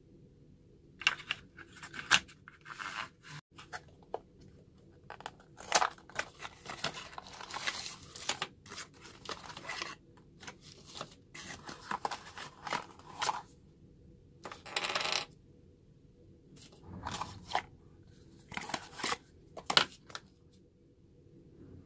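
Unboxing handling noise: cardboard packaging and small plastic camera accessories are picked up, slid and set down. It comes in irregular bursts of rustling and scraping with sharp clicks, and one longer scraping rustle comes about two-thirds of the way in.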